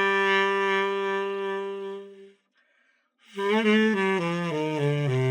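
Tenor saxophone played solo: one note held for about two seconds, breaking off, then a quick run of notes starting about three seconds in.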